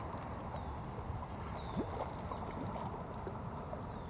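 A hooked bullhead being reeled in: a steady low rustle of handling and water noise with scattered small clicks. A few short, high, falling chirps sound through it.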